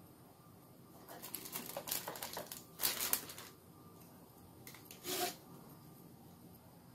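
Handling noise of a plastic hard drive enclosure and its small parts: a run of light clicks and rattles about a second in, a louder clatter near three seconds, and a short rustle about five seconds in.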